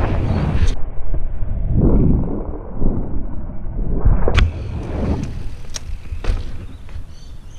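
Mountain bike rolling over rough, cracked concrete, heard through a bike-mounted action camera: a low rumble of tyres and wind buffeting the microphone, swelling and easing, with several sharp knocks and rattles from the bike, the loudest about four seconds in.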